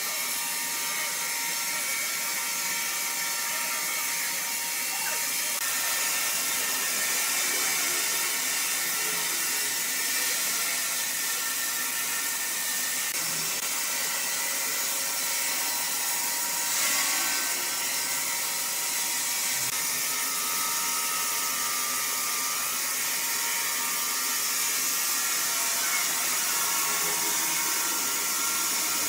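Woodworking power machinery running steadily while cutting wood, a high whine with steady tones over a hiss. It briefly gets louder a little past halfway through.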